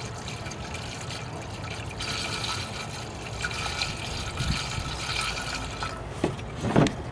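Antifreeze pouring in a steady stream from a jug into a plastic coolant reservoir, refilling the cooling system after a radiator replacement. Near the end the pour stops and there are a couple of knocks.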